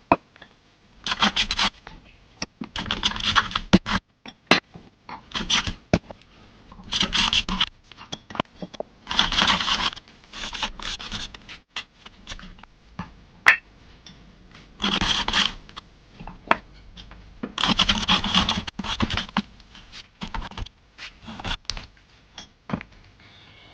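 Wood being scraped or rubbed by hand in repeated strokes, each about a second long, with small sharp knocks and clicks between them.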